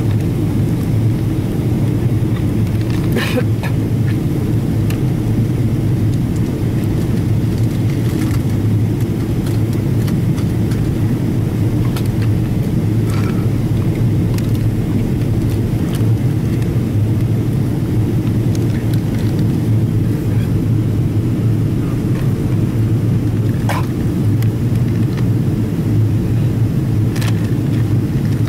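Steady low rumble of a Boeing 777-200ER passenger cabin in flight, engine and airflow noise heard from a window seat, with a few short sharp clicks and rattles scattered through it.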